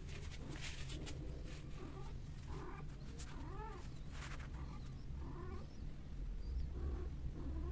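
Domestic cats mating, with short, bending yowls and meows several times, over a steady low hum.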